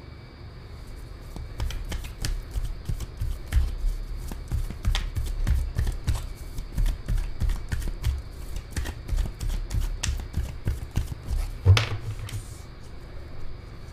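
A deck of tarot cards shuffled by hand: a long run of quick clicks with soft low thuds, stopping a little before the end.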